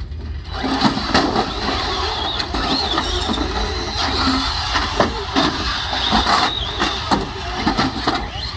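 Radio-controlled demolition-derby cars driving and ramming one another: motors whining up and down, with repeated sharp knocks of the car bodies hitting each other and the wooden arena boards.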